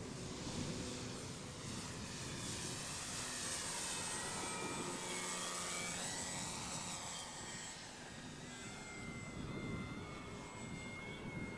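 Electric motor and propeller of an FMS Olympus RC pattern plane in flight, a thin whine whose pitch bends up and down through the middle as the plane passes and manoeuvres, settling into a steadier tone near the end.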